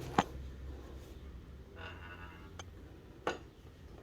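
A 22 mm spanner being fitted back onto an exhaust O2 sensor after slipping off it: two sharp metal clicks about three seconds apart, with a faint scraping between them.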